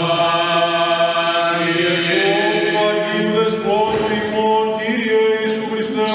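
Byzantine church chant sung by men's voices: a slow melody in long held notes over a steady low drone.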